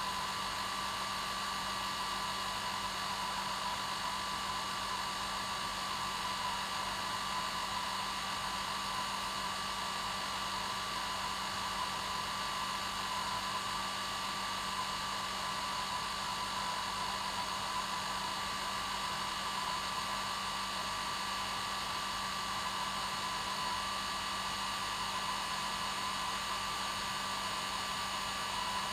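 Hair dryer running steadily on its normal setting: an even rushing of air with a constant motor whine, unchanging throughout.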